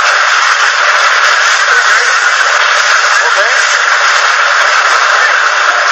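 A steady, dense rushing noise with faint overlapping voices in it.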